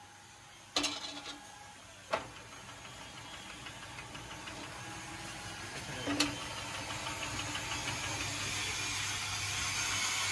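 Steel rim band clanking against a chain-driven rim forming machine: sharp knocks about a second in, at two seconds and at about six seconds. Under them the machine's motor and chain drive run with a steady hum that keeps getting louder.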